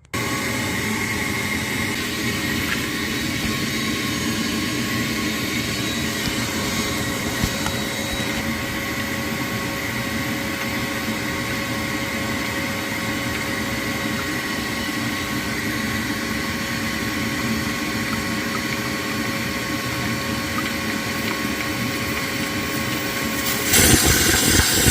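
Shop vac switched on and running steadily, pulling a vacuum through its hose in the oil filler opening so the oil stays in when the drain plug is pulled. Its sound gets louder and rougher near the end.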